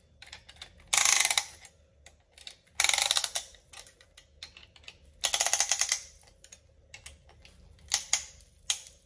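Ratchet-type piston ring compressor being tightened around a piston with its key. There are three bursts of rapid ratchet clicking, the third the longest, then two short clicks near the end.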